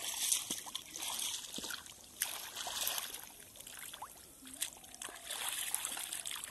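Shallow muddy water splashing and sloshing irregularly as a fish thrashes near the surface and bare hands grab at it.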